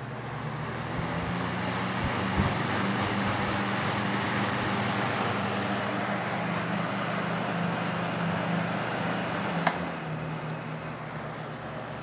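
Vintage McGraw Edison box fan running: a steady rush of air with a low motor hum underneath, growing louder over the first two seconds as the blades come up to speed. A sharp click about ten seconds in, after which it runs a little quieter.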